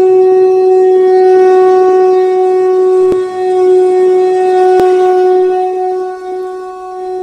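A conch shell (shankha) blown in one long, steady, loud note that dips briefly about three seconds in and fades toward the end.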